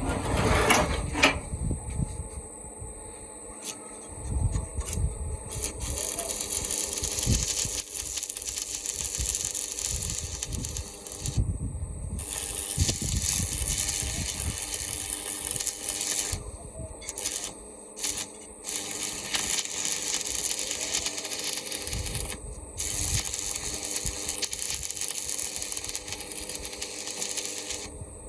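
Electric arc welding on a plow being repaired: a steady crackling hiss that stops and restarts several times as the arc is broken and struck again, after a few knocks in the first couple of seconds.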